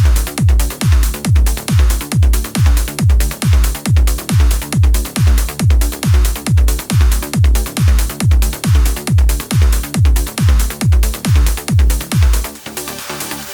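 Electronic dance music with a steady four-on-the-floor kick drum at about two beats a second. The kick drops out near the end, leaving a quieter stretch.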